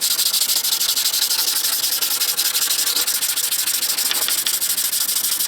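Sanding cured plastic body filler on a car's rear metal panel: a steady, dry, hissing rasp of abrasive on hardened filler.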